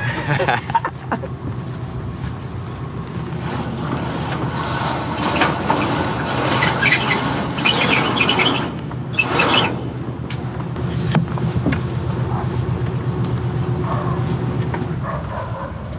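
Sailcloth flapping and rustling as a headsail is hoisted by hand, loudest about six to ten seconds in, over a steady low hum.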